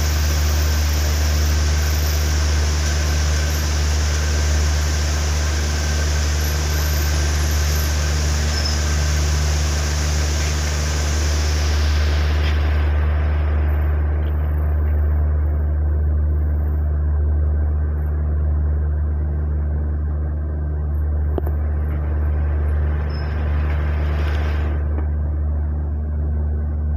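Steady low rumbling hum, with a hiss over it that cuts out about halfway through and swells back briefly near the end.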